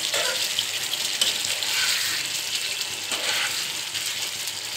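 Thick, creamy egg korma gravy sizzling and bubbling in a frying pan as a spatula stirs through it with a few swishing strokes.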